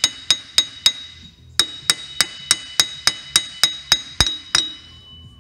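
Steel hammer striking a Yamaha electric golf cart's rear wheel hub, driving it onto the axle shaft with about three blows a second, each ringing metallically. There is a short pause about a second in, then a longer run of blows, and a ringing tone lingers after the last one near the end.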